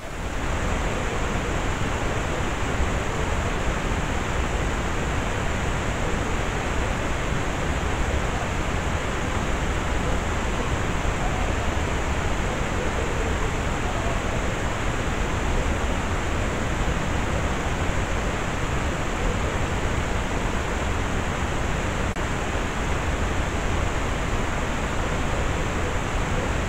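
Steady, even hiss with a low rumble underneath, unchanging throughout, with no distinct animal sounds standing out.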